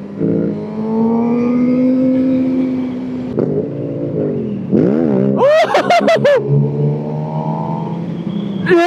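Inline-four sport bike engines running hard at high revs, the note rising slowly before breaking about three seconds in. Around five to six seconds in comes a burst of quickly swinging revs with sharp cracks, then a steadier, lower engine note.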